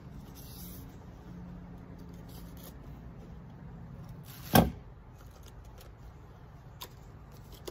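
Scissors snipping through twine once, a single sharp click a little past halfway, followed about two seconds later by a fainter click.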